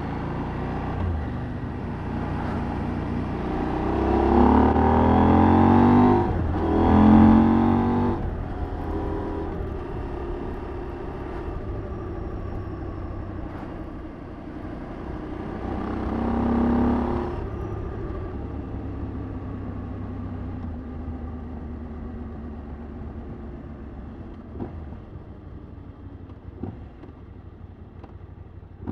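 KTM 790 Adventure's parallel-twin engine through its exhaust while riding: two hard accelerations with rising pitch about four and seven seconds in, another about sixteen seconds in, then steadier running that grows quieter near the end.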